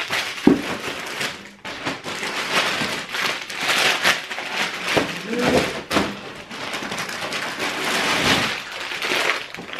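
Plastic bags of frozen food and shopping bags rustling and crinkling as groceries are handled and pulled out, with a sharp knock about half a second in.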